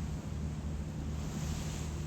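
Passenger ferry under way: a steady low engine drone under the rush of water along the hull, with wind on the microphone.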